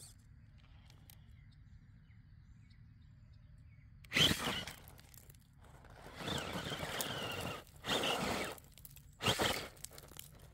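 RC rock crawler climbing rock: tyres scrabbling and crunching on rock and loose gravel, with a faint electric motor and gear whine. A sharp crunch comes about four seconds in, followed by longer spells of crunching and another short burst near the end.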